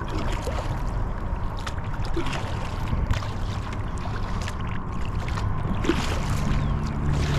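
Water sloshing around a kayak, with scattered small knocks and a low steady rumble underneath; a low steady hum comes in about six seconds in.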